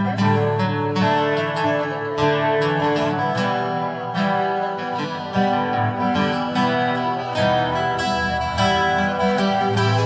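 Acoustic guitar played solo, strummed and picked chords in an instrumental passage of a song, with no singing.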